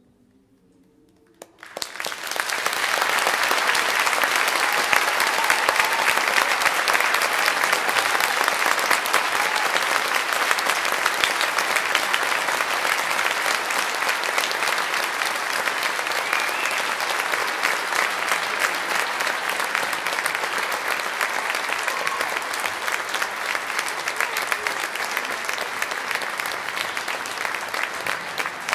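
Audience applauding: many people clapping break out suddenly about a second and a half in, after near silence, and keep up a dense, steady applause.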